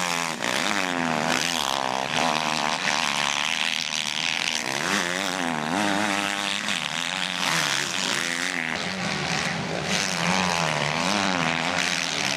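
Motocross bike engines revving hard and falling off again and again, their pitch rising and dropping as the throttle is worked through the corners, sometimes more than one bike at once.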